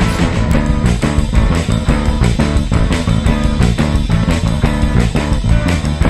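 Three-piece rock band playing an instrumental passage: electric guitar, bass guitar and drums over a steady beat, with no singing.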